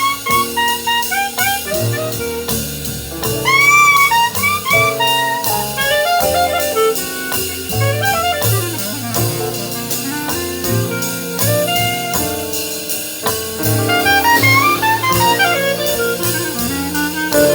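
Small jazz band playing live: a reed instrument solos in quick runs with a few bent notes over drum kit and bass.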